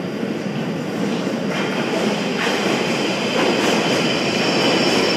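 London Underground train approaching the platform, its rumble growing steadily louder, with a high steady whine joining about halfway.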